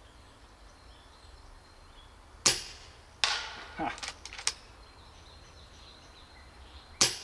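FX Dreamline .30 calibre PCP air rifle, in its German-legal 5.5 foot-pound version, fired twice about four and a half seconds apart, each shot a sharp crack. About three-quarters of a second after the first shot comes a second sharp crack as the pellet strikes the tin can on the distant target, followed by a few short clicks.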